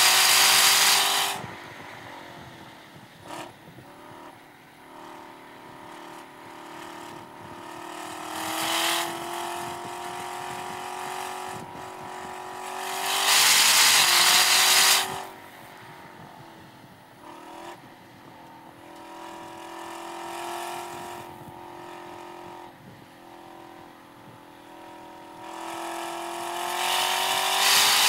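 Chevrolet Camaro ZL1 1LE's supercharged 6.2-litre V8 on a race track, heard from inside the car. The engine pitch rises steadily through the corners at part throttle, broken by loud full-throttle stretches at the start, about nine seconds in, for two seconds around the middle and again near the end.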